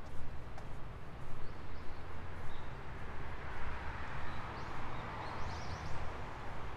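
Downtown street ambience: a steady low traffic rumble, with a vehicle passing about three to five seconds in and a few short high chirps.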